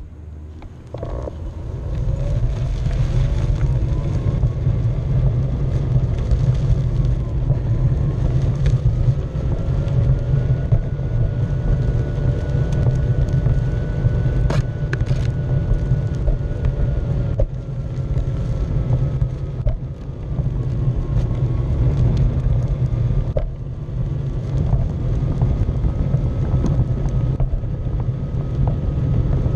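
Onewheel electric board rolling: a steady low rumble of its single wheel on the path with wind on the microphone, and a thin hub-motor whine that rises and falls gently in pitch with speed. It gets louder about two seconds in, with one sharp click about halfway through.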